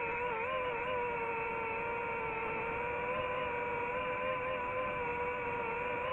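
DJI FPV drone's motors and propellers whining at a near-steady pitch, which dips and wavers briefly in the first second as the throttle shifts, over a constant rush of air noise.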